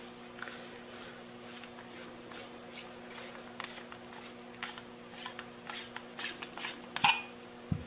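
Objective lens being screwed out of a rifle scope tube by gloved hands: faint scratchy rubbing and small clicks of the threads and rubber gloves, with a few sharper clicks about seven seconds in.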